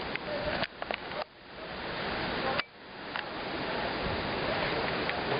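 Strong gusty wind buffeting the microphone as a hurricane approaches, a dense rushing noise. The rush drops out abruptly three times in the first three seconds and swells back each time, then holds steady.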